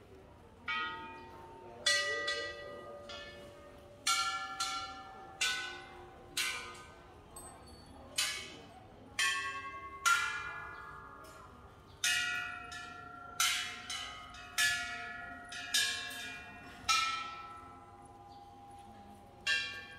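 Hanging Thai temple bells struck one after another, more than a dozen strikes at uneven intervals. Each gives a clear, several-toned ring that fades before the next, and the bells differ in pitch.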